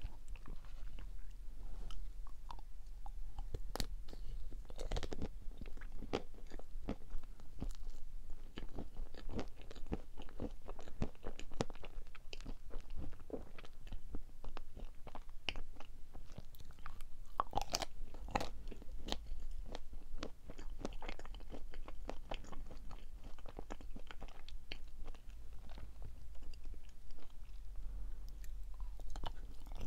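Close-miked eating of chocolate-coated marshmallow sweets: bites and chewing, full of short wet clicks and small crackles, with no talk.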